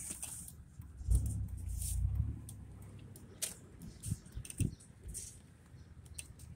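Low rumble of a vehicle driving slowly, swelling for about a second near the start, with scattered light clicks.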